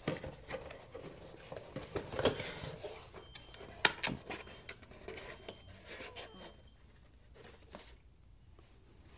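Hands unpacking a parcel: packaging rustling with scattered light clicks and knocks, and one sharp click about four seconds in. It goes quieter toward the end.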